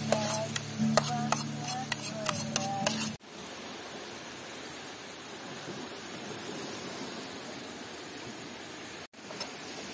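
A utensil clinks and scrapes in a frying pan as food is stir-fried, over a steady low hum. About three seconds in, this gives way to a steady hiss of sizzling.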